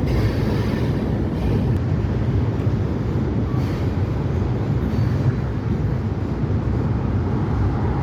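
Freight cars of a CSX train rolling past, a steady low rumble of steel wheels on the rails.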